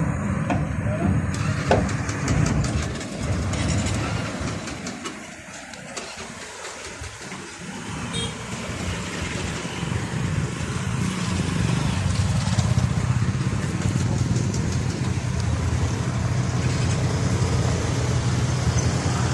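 Motor engines running, with a steady low engine hum that grows louder about eight seconds in and stays on, along with some rattling.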